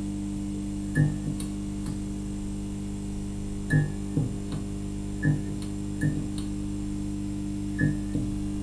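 Neon tube sound effect: a steady electrical hum with short crackling zaps at irregular moments, about nine of them, as the tube flickers.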